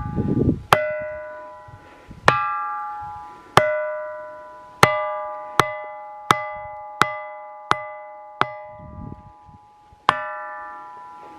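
A ringing boulder struck again and again with a small hand-held stone: about ten sharp knocks, each ringing out with a clear, bell-like tone that dies away over a second or two. The strikes come more quickly in the middle. Hit on different spots, the rock gives the sound of a big bell and a small bell.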